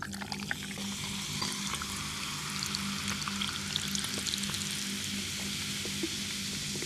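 Food sizzling and crackling in hot oil in a pan; the sizzle starts suddenly at the beginning, as if something was just added, then keeps up steadily.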